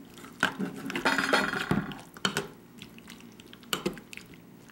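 Metal spoon scraping and clinking against a stainless steel bowl while stirring chunks of raw fish and seafood in their lime-juice marinade: irregular knocks, with a longer run of scraping about a second in.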